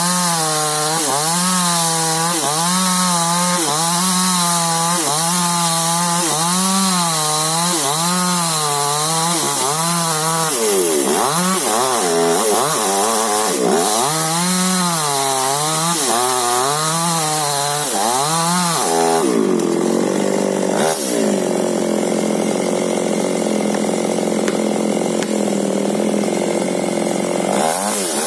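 Chainsaw cutting into a big tree, its engine pitch rising and falling about once a second as the saw is worked through the wood. For several seconds past the two-thirds mark it runs at a steadier pitch, then the rise and fall returns near the end.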